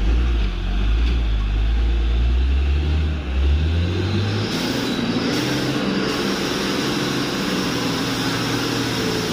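Mitsubishi Fuso dump truck's diesel engine labouring under load as the loaded truck climbs a slippery mud slope, puffing dark exhaust smoke. A deep rumble drops away about four seconds in, leaving a steady engine drone.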